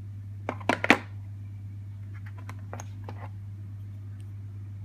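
Chrome ratchet handle clinking sharply against the metal tools and plastic tray as it is lifted from a socket set case, three or four loud clicks, then about a second of lighter rapid clicks as the ratchet is turned and its pawl ticks. A steady low hum runs underneath.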